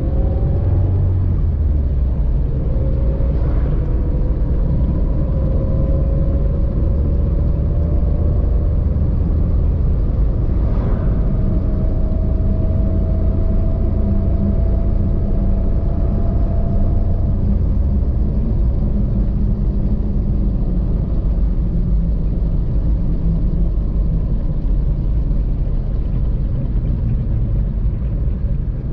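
A vehicle driving: a steady low rumble, with a faint whine that slowly rises in pitch twice.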